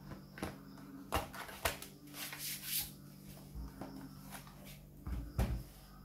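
Sharp plastic clicks and a short scrape as a battery pack is pushed and snapped into its bay on the underside of an HP G42 laptop, then a few dull knocks near the end as the laptop is turned over and set down on the desk.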